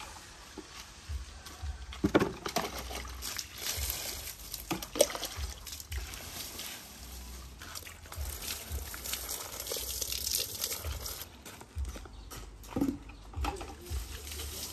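Water scooped from a plastic bucket with a hand dipper and poured over potted plants, splashing onto leaves and soil, with a few sharper splashes and knocks now and then.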